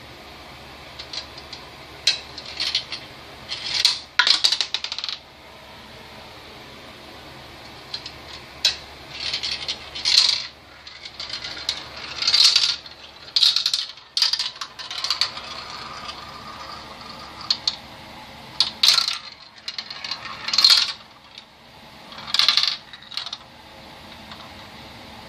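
Marbles rolling and clattering down a marble run: repeated bursts of rattling clicks, each about a second long, with short pauses between.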